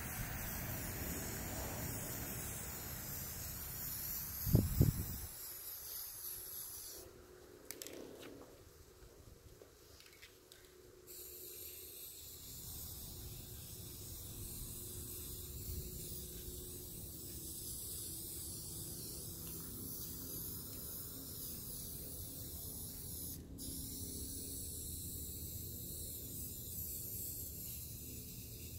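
Aerosol can of Rust-Oleum spray paint hissing as it sprays coats of paint onto the skis. The spraying stops about seven seconds in and starts again about four seconds later. A brief loud low thump comes about four and a half seconds in.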